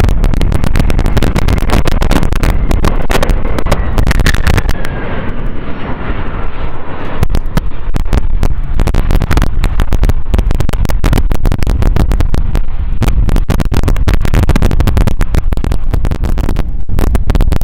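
Heavy wind buffeting on the microphone, loud and unsteady, over the rumble of a Boeing 767-300ER's jet engines as the airliner rolls along the runway.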